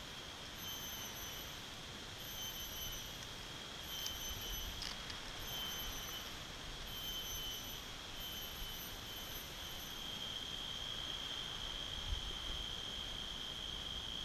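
Insects calling in a high, shrill, steady tone that pulses on and off in short repeated phrases, then holds unbroken for the last few seconds.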